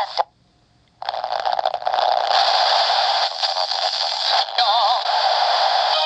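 The small speaker of the No.8129 flashlight radio as its tuning wheel is turned. The talk cuts off with a short silence, then static hiss comes in at about a second, with a wavering snatch of music or singing near the end as it tunes toward a music station.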